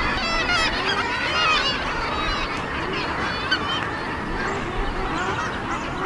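Seabird breeding colony chorus: many birds calling at once in short, nasal, overlapping calls with no pause.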